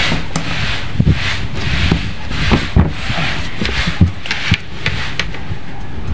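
Phenolic plywood board being handled right by the microphone: a scraping rub that comes and goes, with several dull, irregular knocks of wood.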